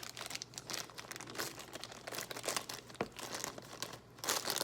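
Plastic toy packaging crinkling and tearing as a small boxed figure is unwrapped by hand, with a dense run of small crackles and a louder burst near the end.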